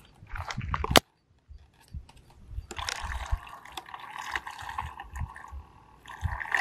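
Water sloshing and trickling, mixed with handling knocks and a sharp click about a second in.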